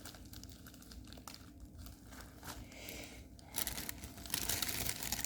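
Packaging being torn open by hand instead of with scissors, crinkling and ripping, faint at first and louder from a little past halfway.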